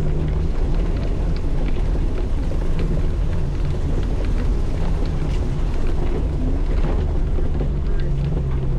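Side-by-side's engine running steadily at low speed while it drives a rough wooded trail. Scattered light knocks and ticks come from brush and ground under the vehicle.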